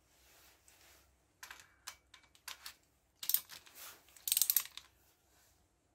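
Socket wrench ratcheting in short bursts of fast clicks on the cylinder head nuts of a Kawasaki KZ1100 engine, with scattered single metal tool clicks before; the two loudest bursts come about three and four seconds in. These are ratchet clicks, not the torque wrench's click-over, which it has not yet reached on this pass.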